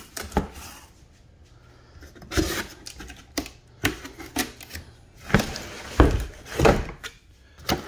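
Cardboard packaging being handled: a string of rustles, scrapes and knocks as box flaps are pulled open and a hedge trimmer and its plastic blade cover are moved about inside the box. The loudest knocks come in the second half.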